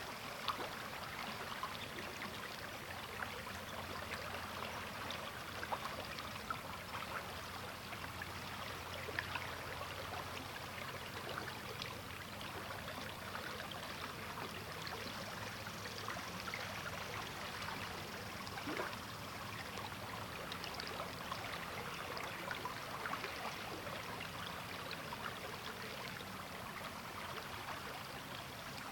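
River water flowing and babbling over rocks, a steady rush with many small splashes and gurgles.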